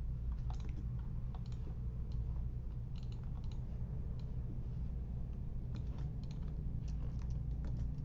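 Typing on a computer keyboard: irregular runs of keystrokes over a steady low hum.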